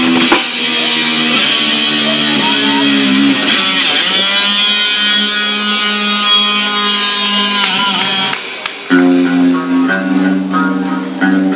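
Rock music led by a guitar playing long, held notes, with a bend in pitch about four seconds in. About nine seconds in it changes to a repeating chord riff.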